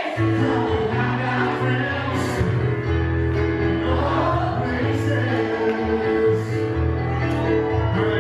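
Live piano-bar music with several voices singing together over held bass notes.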